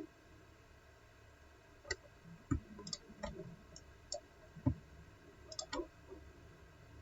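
Computer mouse clicking: a string of faint, scattered single clicks at irregular gaps, starting about two seconds in.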